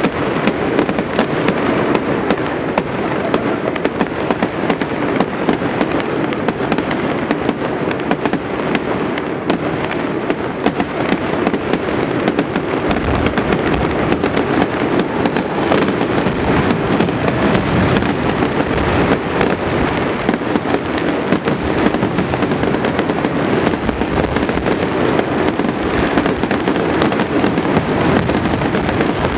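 Large fireworks display: a dense, continuous barrage of shell bursts and crackling, with deeper booms joining in about halfway through.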